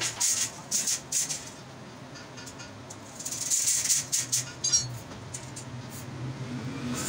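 Steel wire rattling and jangling against a metal frame as it is handled. There is a cluster of rattles in the first second and another around the middle, with a brief metallic ring near the end of the second cluster.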